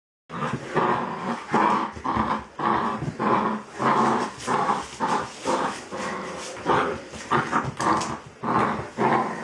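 An animal's repeated short calls, about two a second, each a brief low-pitched burst with a small gap before the next.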